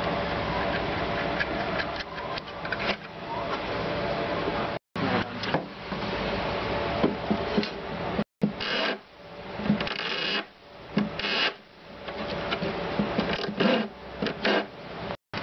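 Hand file scraping in short, uneven strokes along the edge of a mixer grinder's body, over steady background noise. The sound cuts out briefly three times.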